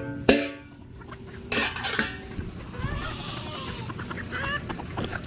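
Ringing metal clanks, then a rattling clatter about one and a half seconds in, as dog food is got out. Poultry call in the background.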